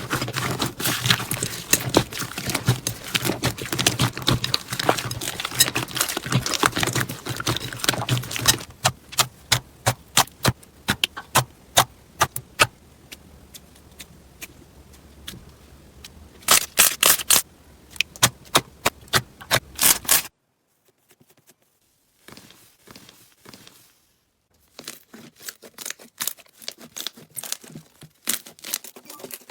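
Slime being squished and pressed, giving a dense run of crackling clicks and pops that thins to scattered pops with a brief flurry later on. It breaks off abruptly about two-thirds of the way through, and then comes fainter, sparser clicking.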